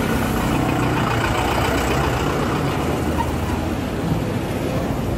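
Tractor diesel engine idling steadily, an even low running sound with no change in speed.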